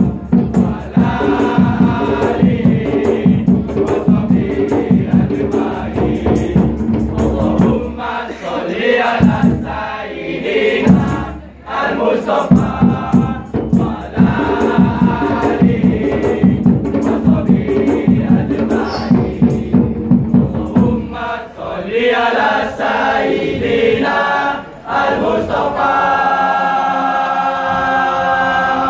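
A kompang troupe of boys singing in chorus while beating kompang frame drums in a steady rhythm. About 21 seconds in the drumming stops, and the chorus goes on unaccompanied in long, held notes.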